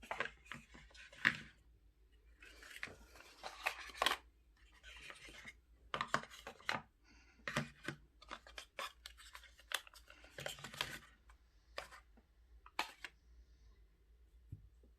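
Packaging being handled: an irregular string of rustles and scrapes with sharp clicks in between.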